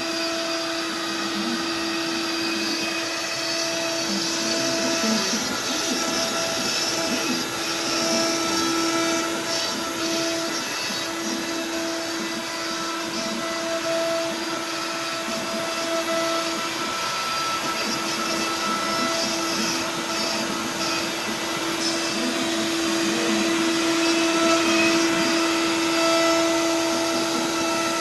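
Router spindle of an Inventables X-Carve CNC machine running with a steady high whine while an end mill carves wood in a roughing pass; the whine wavers and drops briefly a few times as the cut changes.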